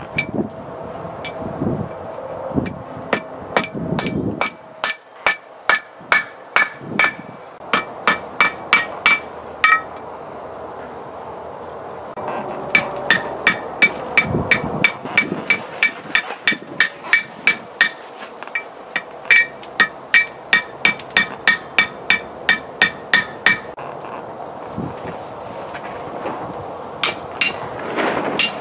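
Hand hammer striking a red-hot railroad spike on an anvil in long runs of quick blows, about two to three a second, each blow leaving a short ring from the anvil. The hammering stops for a couple of seconds about a third of the way in, and a few more blows land near the end, on a punch held to the hot iron.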